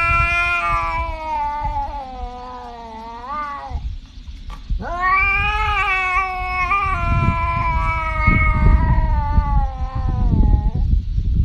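Tabby cat yowling in long, drawn-out caterwauls. The first is about four seconds long and bends upward near its end. After a short break a second runs about six seconds, rising sharply at its start and dropping away at its end, and a third begins just before the end. A steady low rumble lies underneath.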